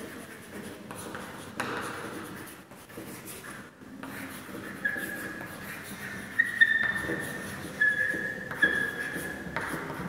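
Chalk writing on a chalkboard: scratchy strokes, then from about halfway through a series of short, high squeaks from the chalk.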